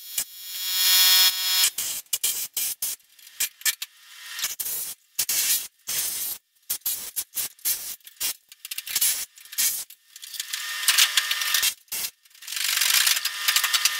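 Handheld pneumatic air tool run in short start-stop bursts against the rusted sheet metal of a 1963 Chevy C10 cab, with hissing air and a spinning whine that rises as it first spins up. Two longer runs come near the end.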